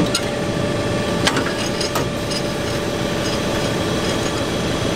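Tractor engine running steadily, with a steady hum above it and two sharp clicks about one and two seconds in.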